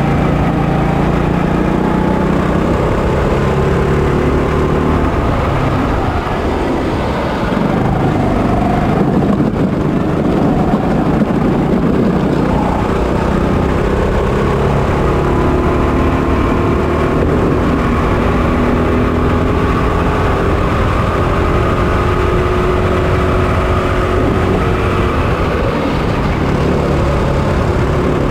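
Single-cylinder 6.5 HP four-stroke Honda GX200 engine of a 200cc rental kart, heard from onboard at full race effort. Its pitch dips through the corners, then rises steadily over the second half as the kart accelerates down a straight.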